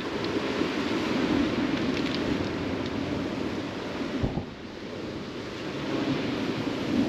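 Steady wind and surf noise on a shingle beach, with a gust thumping on the microphone about four seconds in.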